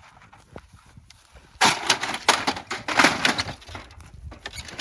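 A few rifle shots in quick succession from an AR-15 chambered in .300 Blackout, starting suddenly about a second and a half in and lasting about two seconds.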